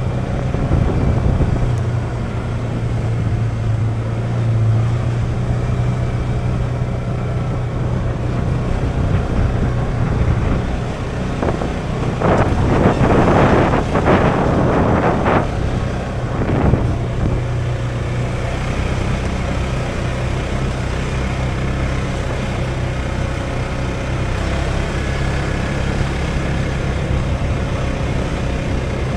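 Polaris 570 off-road vehicle's single-cylinder engine running steadily on the move, with wind on the microphone. About halfway through, several seconds of louder rushing noise rise over the engine.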